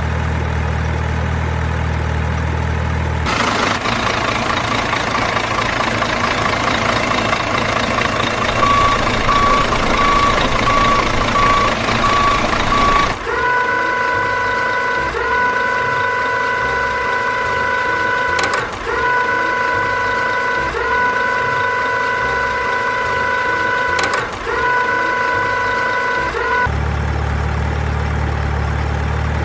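Heavy truck engine idling with a low hum, then running harder as a reversing alarm starts beeping. A long, steady, multi-pitched tone follows, broken briefly a few times, before the engine settles back to idle near the end.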